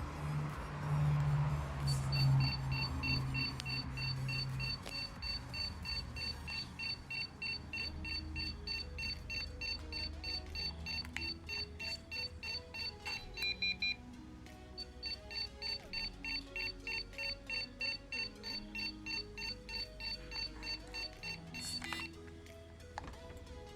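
Electronic buzzer on an Arduino door lock circuit beeping rapidly, about three short beeps a second, with a brief steady lower tone in the middle, over background music.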